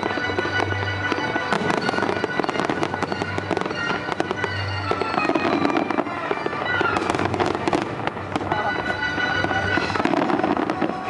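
Aerial fireworks shells bursting in quick, dense succession with crackling, heaviest about two-thirds of the way through. Music with long held notes plays underneath.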